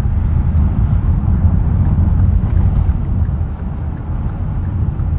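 Steady low rumble inside a moving car's cabin, road and engine noise picked up by a phone's microphone, easing slightly about three and a half seconds in.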